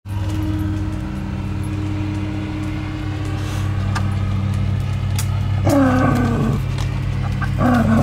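Lawn mower engine running with a steady drone. About six seconds in, and again near the end, a higher wavering howl-like call rises over it.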